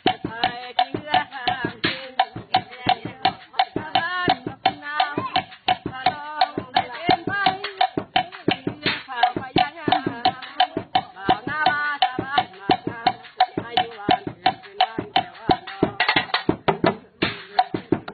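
Fast, steady stick-drumming on a homemade kit of a hollow log drum and other found objects, with a voice singing a wavering melody over the beat.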